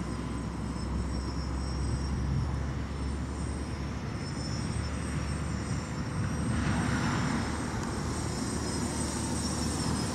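Small DIY quadcopter's brushless motors and propellers buzzing overhead, heard from the ground as a steady hum with a faint high whine, swelling a little about two-thirds of the way through.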